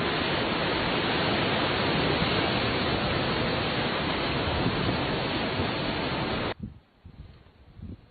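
Steady rushing noise, even and without any tone, that cuts off abruptly near the end, leaving a much quieter background with faint low rumbles.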